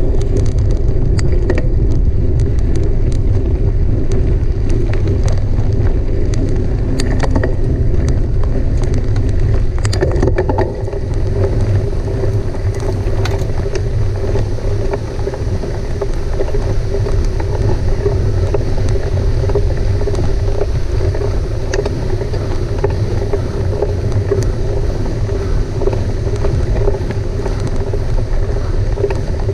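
Mountain bike riding at race pace: heavy wind noise on the camera's microphone over the tyres rolling, with a steady hum. Sharp rattles and clicks from the bike run through roughly the first ten seconds, then ease off.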